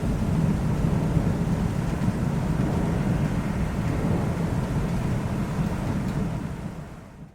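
Thunderstorm: a low, steady rumble of rolling thunder with a faint rain hiss, fading out near the end.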